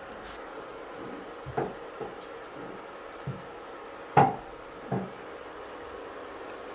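Heart-shaped maida cookies deep-frying in oil with a steady sizzle, broken by five short knocks, the loudest about four seconds in.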